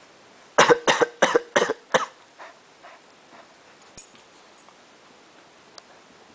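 A young child's pretend coughs: about five short, forced coughs in quick succession, then a few fainter ones trailing off.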